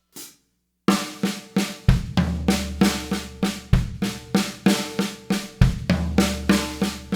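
Pearl drum kit playing a six-stroke-roll groove on a steel snare, with one snare stroke swapped for a bass drum hit. The right hand moves to the floor tom on alternate measures, so a low floor-tom boom rings out twice among the quieter snare strokes. The playing starts about a second in at a steady tempo.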